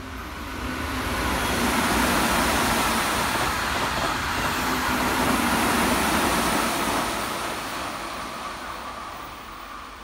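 Keihan Railway limited express train passing at speed on the far track: a rush of wheels on rail that builds over the first two seconds, stays loud through the middle, and fades away near the end.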